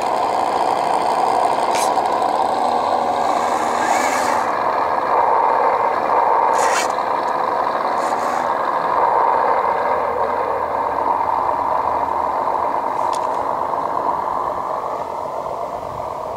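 Radio-controlled scale Land Rover Defender truck running with a steady, engine-like drone. A few short hisses and clicks sound over it.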